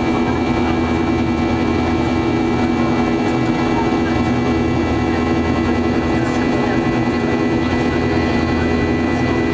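Boeing 737-800's CFM56-7B turbofan engines heard from inside the cabin during the climb after take-off. A steady drone with a constant low hum and a thin, high whine held over it.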